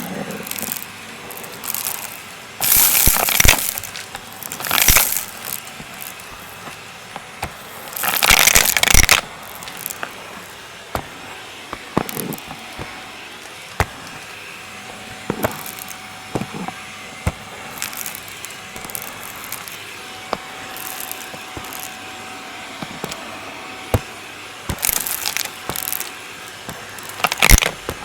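Vacuum cleaner sucking up crunchy debris: a steady motor sound with constant crackling and clicking as bits rattle up the nozzle, and several louder bursts of crunching noise, the longest about eight seconds in.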